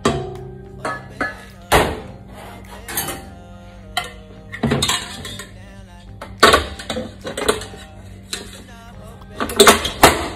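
Stainless-steel cookware clanking and scraping: a saucepan knocking against a KitchenAid stand mixer's steel bowl as a spatula scrapes it out, then the bowl and wire whisk knocking as they are handled on the mixer. Several sharp metal knocks, the loudest cluster near the end, over background music.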